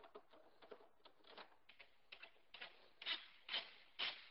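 Screws being driven by hand with a screwdriver into the top of a dishwasher's decor door: a run of short scraping strokes, about two a second, growing louder in the last second or so.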